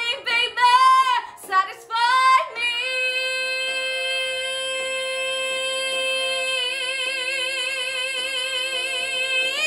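A woman singing a few short phrases, then holding one long high note for about seven seconds, steady at first and then with vibrato.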